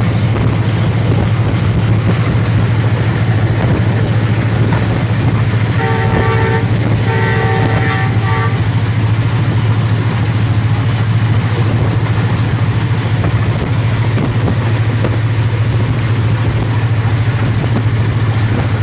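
Diesel locomotive running with a steady low engine drone, heard from close beside its hood on the moving train. About six seconds in, the train horn sounds two blasts, each about a second long, the second a little longer.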